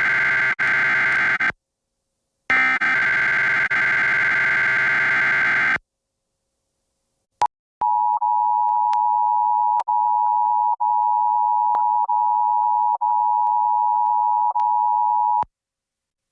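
EAS SAME header data bursts, a raspy digital screech, heard twice with brief dropouts from reception interference. After a short silence and a click, the steady two-tone EAS attention signal plays for about seven and a half seconds, broken by brief dips, then cuts off.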